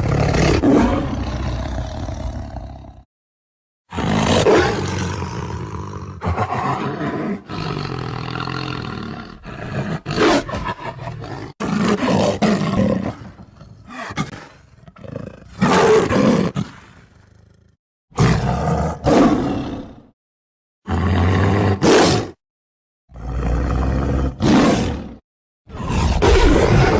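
Tiger roaring and growling in a string of about eight separate roars, each cut off abruptly with short dead-silent gaps between them, as in an edited sound-effect reel.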